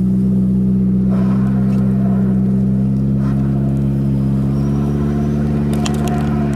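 1990 Mitsubishi Magna's four-cylinder engine held at steady high revs in a burnout, the front wheel spinning on dry grass. There is a cluster of sharp ticks about six seconds in as dirt is flung from the tyre.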